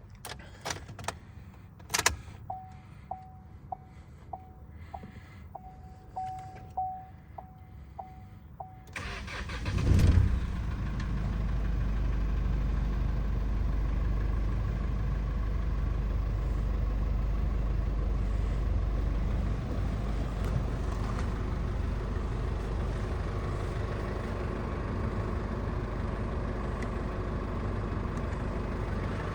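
Chevrolet S10 pickup: a few clicks and a knock, then a warning chime beeping over and over at one pitch. About nine seconds in the engine cranks and starts, flares briefly, and settles into a steady idle.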